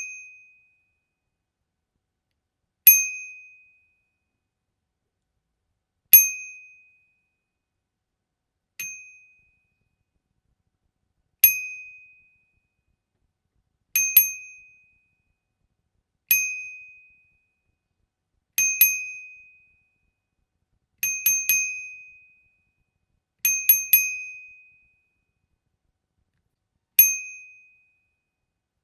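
Bicycle bell rung repeatedly, every two to three seconds. Some are single dings and some are quick double or triple rings. Each is a clear high ring that dies away within about a second, and one strike near the middle is quieter.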